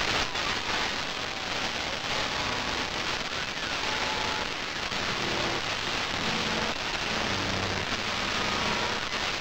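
A steady, dense hiss of noise like heavy rain, with faint short tones now and then.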